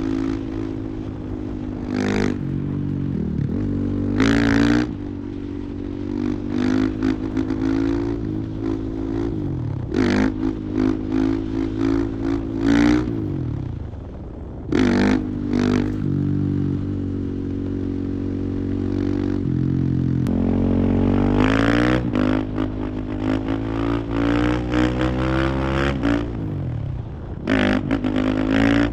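Husqvarna FE 501 single-cylinder four-stroke engine under a riding load, its revs climbing and dropping again and again as the throttle is opened and shut, with a steadier stretch in the middle. Short rushes of noise come at the peaks of the revs.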